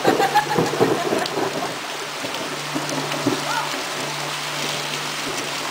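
Heavy rain falling steadily, an even hiss of a downpour on grass and garden plants.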